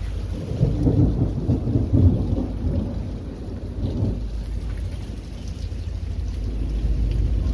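Rolling thunder rumbling over steady heavy rain. It builds about half a second in, is loudest a second or two in, and dies away by about four seconds in.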